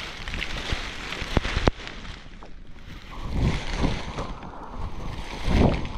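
Wind buffeting the microphone in irregular gusts over a steady hiss, with two sharp knocks about a second and a half in.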